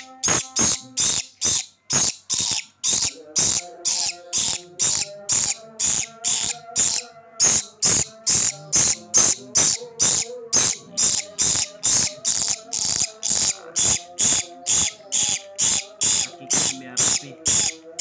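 A metal nail file rasping back and forth across the tip of a red lory's beak in quick, even strokes, about two and a half a second, filing the sharp point blunt.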